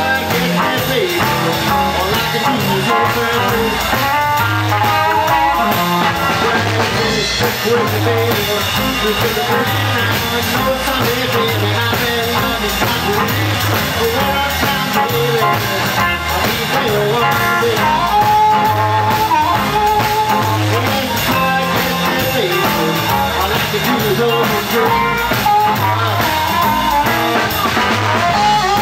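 Live electric blues band playing: guitars and drum kit in a steady groove, with a harmonica blown into the vocal mic in held notes near the end.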